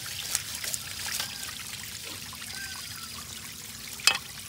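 Water trickling and dripping onto wet concrete, with small splashes and one sharp tap about four seconds in.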